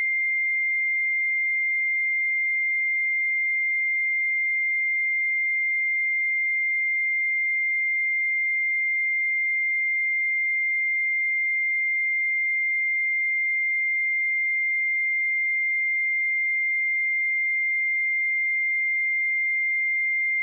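A pure 2104 Hz sine-wave test tone, one steady unchanging pitch.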